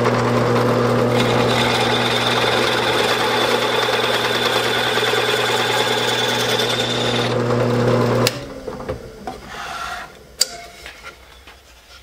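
Drill press running with a hole saw cutting into a cypress board: a steady motor hum under a harsh rasping cut with a high whine. The cutting stops about seven seconds in and the motor hum cuts off abruptly a second later, followed by a few light knocks and a click.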